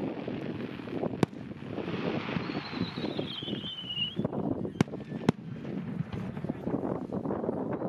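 Fireworks going off: three sharp bangs, the first about a second in and two close together near the middle, among fainter pops. A constant murmur of crowd and wind runs underneath, and a high whistle falls in pitch between the first and second bangs.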